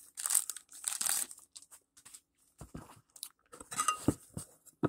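A clear plastic bag and plastic card holder being handled: irregular crinkling and rustling, with a few sharp taps near the end.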